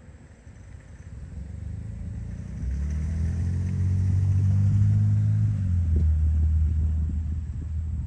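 A motor vehicle driving past, its low engine hum swelling to a peak about halfway through and fading near the end.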